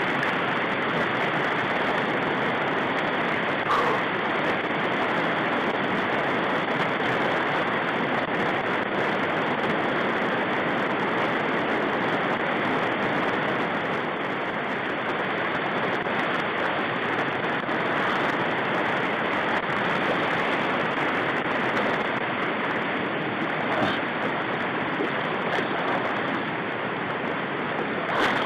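Shallow river rapids rushing steadily over rocks, an even, unbroken roar of water.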